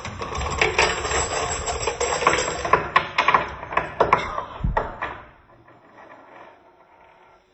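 Small parts of a Rube Goldberg machine clattering as they run, a steady string of clicks and knocks that dies away about five seconds in.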